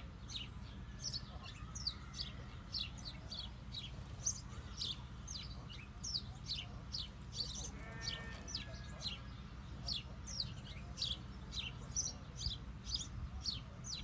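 Small birds chirping over and over, each chirp a quick high note falling in pitch, a few a second, with a short animal call about eight seconds in and a steady low hum underneath.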